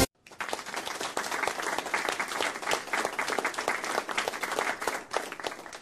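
Audience applauding: many hands clapping at once, fading out near the end.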